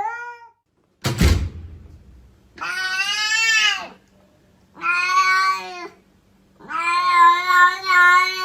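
A cat meowing in three long, drawn-out calls, the last the longest, after a single thump about a second in.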